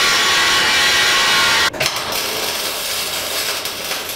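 An angle grinder runs steadily on steel overhead and stops abruptly about a second and a half in. Then a MIG welder crackles and sputters as a weld is laid overhead.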